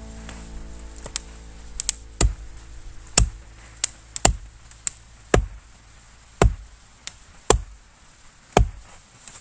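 Firewood being chopped with a hand blade: about ten sharp, quick chops, roughly one every half second to a second. Background music with held tones fades out in the first half.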